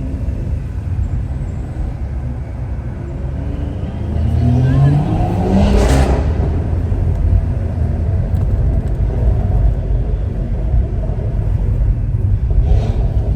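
Stage 2 tuned BMW 540i with a custom exhaust running with a low, steady exhaust rumble. About four to six seconds in, the engine revs up in a rising sweep that ends in a loud, sharp crack from the exhaust. Another brief crack comes near the end.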